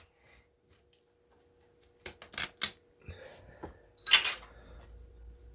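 A few light clicks and knocks of scrap metal parts being handled, starting about two seconds in, then a brief louder clatter about four seconds in.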